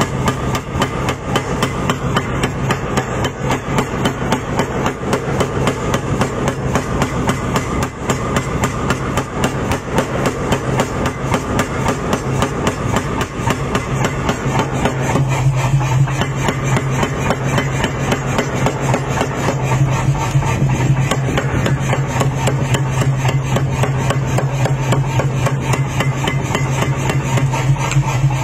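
Power hammer striking red-hot steel in a fast, even run of blows over the steady hum of the machine, forging the bar's end flat into a blade shape.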